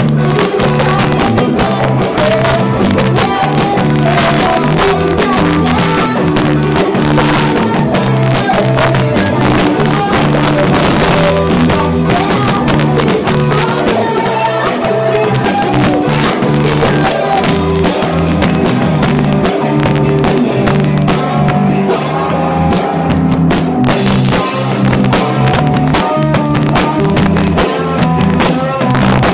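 Live rock band playing loudly: electric guitars and drum kit, with a woman singing into a microphone, in a rough, poor-quality recording.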